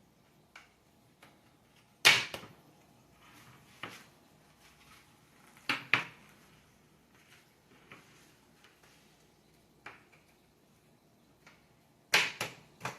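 Mini greenhouse frame poles being pushed and knocked into their connectors by hand: scattered sharp clicks and knocks, the loudest about two seconds in and a quick cluster near the end.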